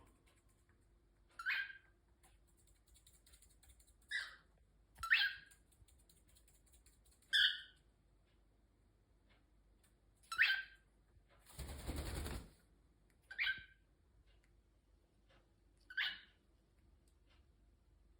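Cockatiel giving short, sharp contact calls, one every two to three seconds, seven in all. About twelve seconds in there is a single burst of rustling noise lasting roughly a second.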